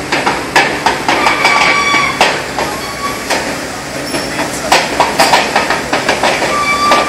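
Heavy machinery pulling a heat exchanger out: a steady mechanical running noise with repeated sharp metal clanks and several brief high-pitched squeals.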